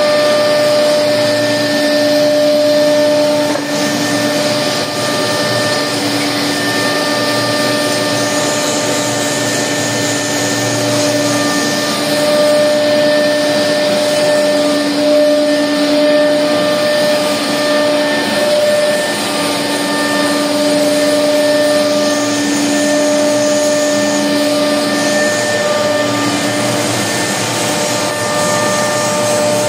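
16K20F3S5 screw-cutting lathe running under power: a loud, steady machine whine over a mechanical hum, with no change in speed.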